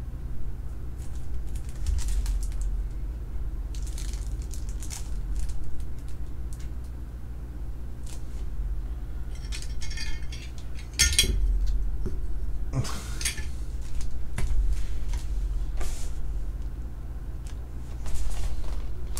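Clear plastic bag crinkling and rustling as a PSA-graded card slab is slid out of it, with scattered light hard-plastic clicks as the slab is handled and stood up, over a steady low hum.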